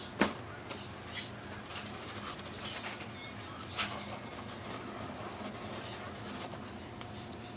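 A hand sprinkling salt onto a whole cleaned fish on a stone slab and rubbing it into the scaled skin: soft rubbing and handling noises, with a sharp knock just after the start and a smaller one about four seconds in.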